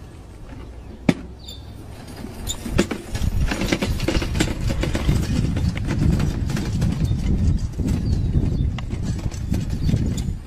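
A plastic-tubbed garden wagon rattling and clattering as a goat shoves it across hard dirt, starting about two and a half seconds in. A single sharp click about a second in.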